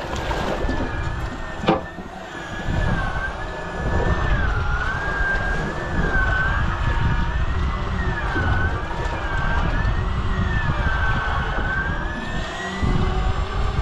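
Fishing reel winding line in against a hooked fish, its whine rising and falling about once a second with each turn of the handle. Low wind rumble lies underneath, with a sharp click about two seconds in.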